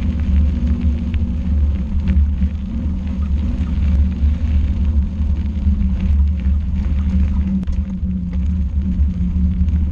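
Steady low rumble and hum of a vehicle travelling along a gravel track, with scattered faint clicks from the loose surface.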